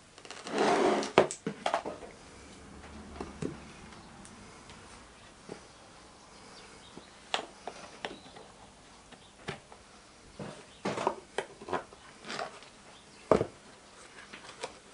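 Metal sand-casting moulding flasks and tools being handled: a scraping rustle lasting about a second at the start, then scattered light knocks, clicks and taps, with one sharp knock near the end.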